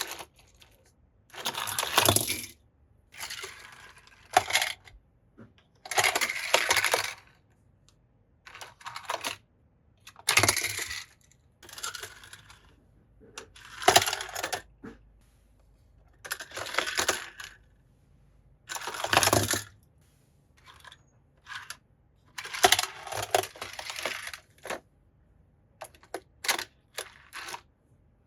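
Small die-cast toy cars clattering and clinking against hard plastic and each other, in about fifteen short bursts every second or two.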